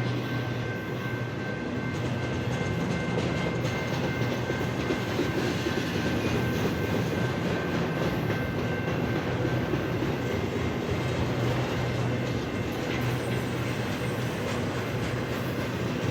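BNSF intermodal freight train rolling past: a steady rumble of wheels on the rails, with a faint, steady high whine above it.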